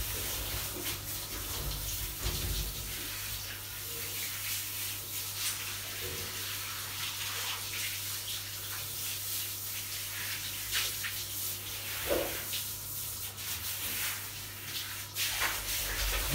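Handheld shower spraying water over a large dog in a shower cubicle: a steady hiss of running water with splashing.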